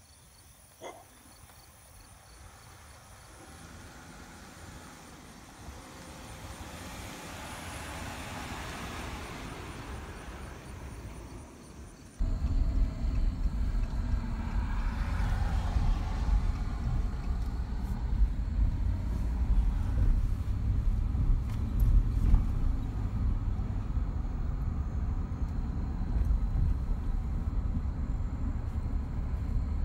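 A pickup truck carrying a truck camper and towing a boat approaches on the road, its tyre and engine noise swelling gradually. After an abrupt cut about twelve seconds in, the moving truck is heard from the cab as a steady, louder low rumble of road and engine noise.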